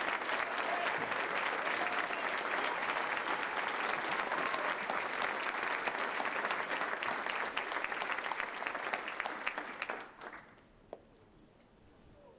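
Audience applauding, a dense steady clapping that dies away about ten seconds in, leaving a quiet room with one faint knock near the end.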